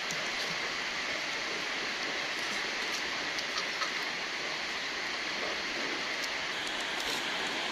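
Steady hiss of rain falling, with a few faint clicks scattered through it.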